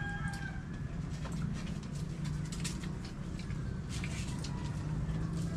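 Scattered small clicks and taps of people eating by hand from a shared table, over a low steady background hum.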